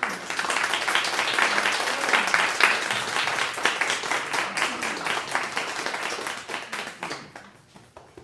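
Congregation applauding: many hands clapping at once, swelling in the first seconds and fading out about seven seconds in.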